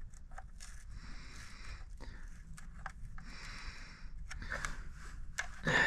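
Faint rustling and small clicks of a hand working among a diesel truck's wiring harness and connectors, over a low steady hum, with a louder breath near the end.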